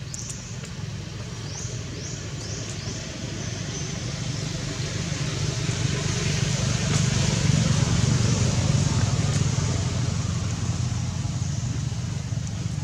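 A motor vehicle's engine passing by: a steady low hum that grows louder towards the middle and then fades. A few short, high, rising chirps sound in the first three seconds.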